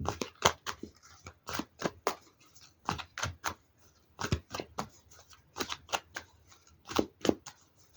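Tarot cards being shuffled by hand: a string of short, irregular card slaps and snaps, a few each second.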